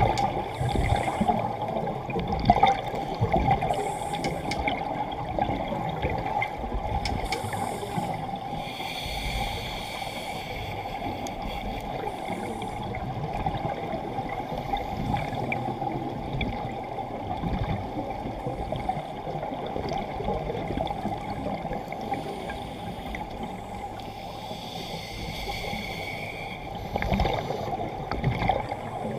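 Muffled underwater gurgling of scuba exhaust bubbles and regulator breathing, recorded underwater, with two longer hissing breaths about nine seconds in and near the end.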